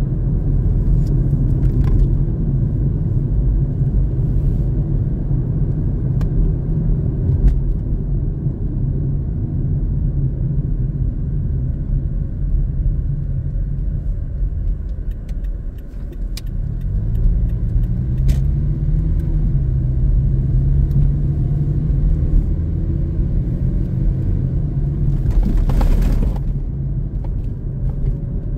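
Car driving, heard from inside the cabin: a steady low rumble of engine and road noise. About halfway through it dips as the car slows nearly to a stop, then the engine note rises again as it pulls away. A few faint clicks and a brief hiss come near the end.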